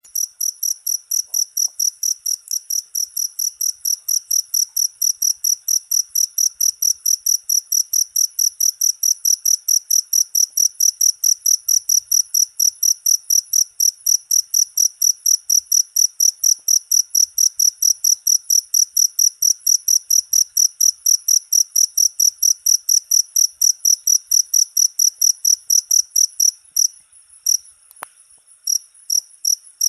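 Cricket chirping steadily, a few high-pitched chirps a second in an even rhythm. The rhythm falters near the end and pauses briefly around a single click, then picks up again.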